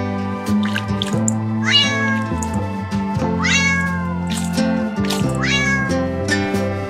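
A cat meowing three times, each call rising then falling, over steady background music.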